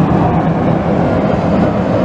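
Engines of several dirt-track race trucks running hard as they lap the oval, a steady loud din with one engine tone rising slightly in pitch.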